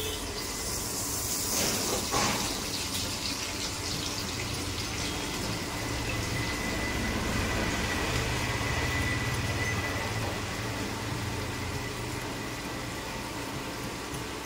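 Butter sizzling in hot mustard oil in a pan: a steady hiss, strongest in the first few seconds and then settling.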